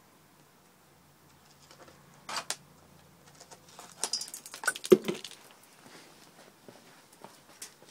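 Bonsai soil being packed by hand: scattered crackling and crunching of grit, with a louder knock about five seconds in.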